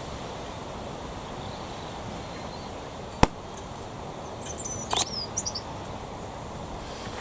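Outdoor background hiss, broken by a single sharp click about three seconds in, then a short burst of high bird chirps with quick pitch glides around five seconds in.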